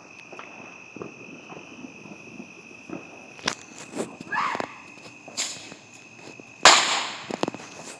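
Fireworks going off: a few sharp cracks about half a second to a second apart, then one much louder bang near the end that fades over about half a second.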